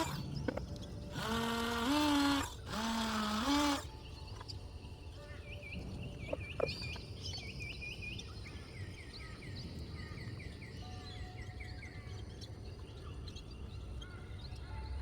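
Two loud, drawn-out calls, each lifting in pitch at its end, then runs of quick, high bird chirps over a steady outdoor background.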